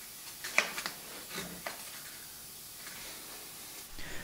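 A few light clicks and scrapes of a thin wooden strip against the blades of an old jointer's three-knife cutter head, over faint room hiss.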